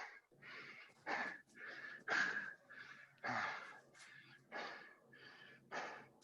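Heavy, fast breathing, about two breaths a second, from the exertion of doing burpees.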